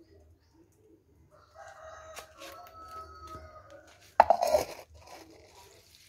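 A rooster crowing once, one long drawn-out call lasting a couple of seconds. About four seconds in comes a short, loud burst of noise.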